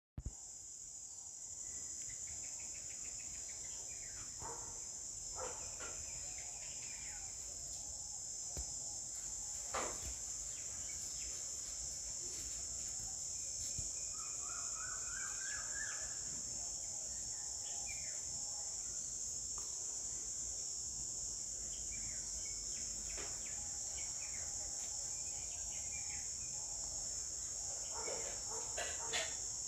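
Steady high-pitched drone of insects, crickets or cicadas, with scattered bird chirps and a short rising run of notes about halfway through.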